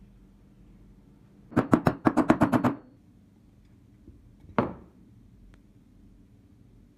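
Sharp knocks of steel pistol parts being handled: a quick run of about ten loud taps in a little over a second, then a single click about two seconds later.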